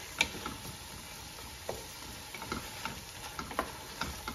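Wooden spatula stirring a thick masala of tomato, onion, coriander and mint in a non-stick pot on a slow flame, with irregular scrapes and taps against the pot over a faint sizzle.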